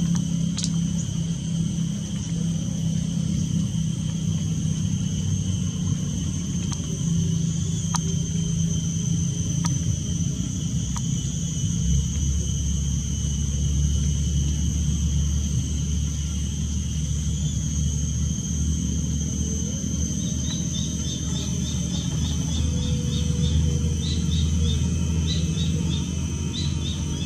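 Outdoor rural ambience: a steady low rumble under a continuous high insect drone. From about twenty seconds in, a quick run of short, high chirps joins in.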